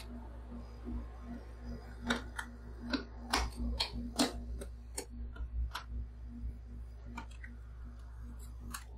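Metal spatulas clicking and scraping against the frozen steel plate of a rolled ice cream pan as a layer of blueberry whipped cream is smoothed and worked. Irregular sharp clicks, busiest in the middle, over a steady low hum.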